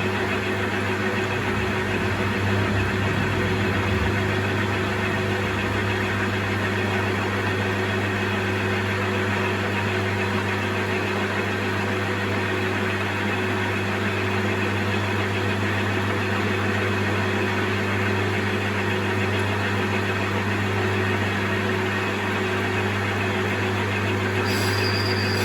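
Metal lathe running steadily at speed with a cast iron workpiece spinning in the chuck, a constant motor and drive hum, as the boring bar is brought up to touch off in the bore. A brief high whine comes in near the end.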